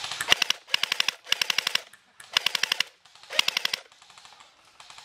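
Airsoft PPSh replica firing in five short full-auto bursts, about one a second, each a quick rattle of rapid shots.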